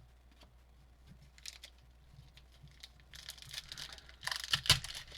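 Trading cards and packaging being handled: a few faint ticks, then crinkling and rustling of card stock and wrapper from about three seconds in, with a sharper tap near the end.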